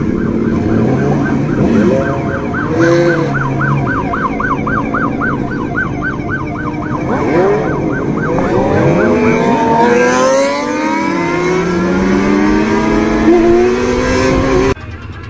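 Police siren yelping in a rapid warble, about four to five cycles a second, over a sport motorcycle's engine being revved up and down with wind rush. In the second half the siren's yelp gives way and the motorcycle engine climbs in pitch as it accelerates.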